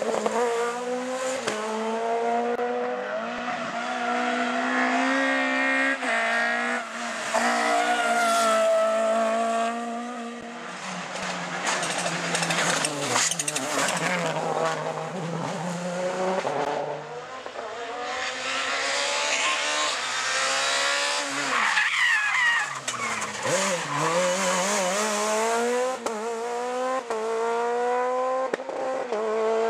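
Rally cars at full speed on a tarmac stage, a Peugeot 207 and a Mitsubishi Lancer Evolution among them. Their four-cylinder engines rev hard, the pitch climbing and dropping back with each gear change as the cars pass.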